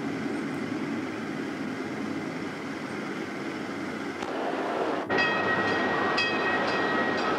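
Chicago & North Western commuter train rumbling along an elevated viaduct. After a cut about five seconds in, a steady high tone and sharp ringing strikes about twice a second come from around a locomotive at a station platform.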